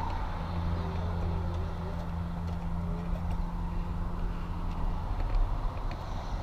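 Single-cylinder motorcycle engine idling with a steady low hum.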